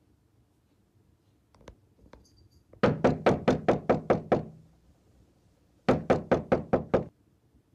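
Rapid knocking on a door in two runs: about eight quick knocks, a pause of about a second and a half, then about six more, roughly five knocks a second. A single faint thud comes shortly before the first run.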